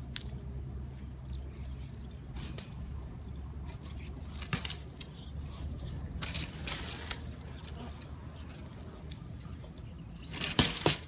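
BMX bike ridden through a flatland trick on stone paving: scattered clicks and scuffs of tyres and bike parts, a longer scrape about six seconds in, and a loud clatter of knocks near the end, over a steady low rumble.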